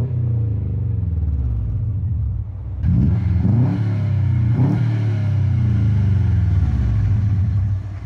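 Honda Civic's four-cylinder engine, fitted with unequal-length headers, idling with the lopsided burble of a classic Subaru boxer. The throttle is blipped twice, at about three and about four and a half seconds in, the revs rising and falling quickly each time.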